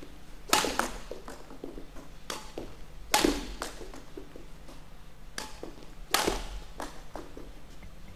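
Badminton racket strikes on shuttlecocks in a net-kill drill: about five sharp smacks, some in pairs under a second apart, the loudest with a low thud from the player landing on the court.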